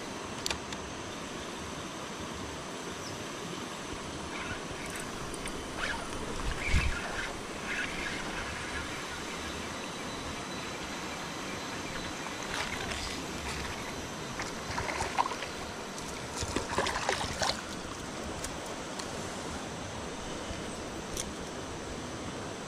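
Steady rush of flowing river water, with a few short knocks and splashes scattered through it; the loudest is a low thump about seven seconds in.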